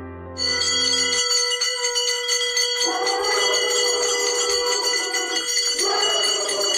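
Brass temple bells being rung again and again during a puja, many overlapping ringing tones with rapid strikes. They start sharply about half a second in, as soft piano music fades out within the first second.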